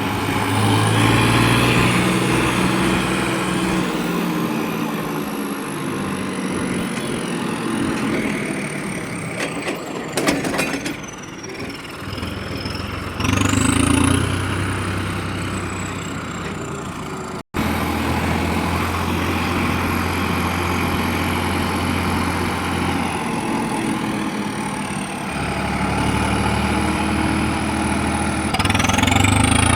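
Farm tractor's diesel engine running as the tractor is driven, its pitch stepping up and down with engine speed. A short clatter of knocks comes about a third of the way in.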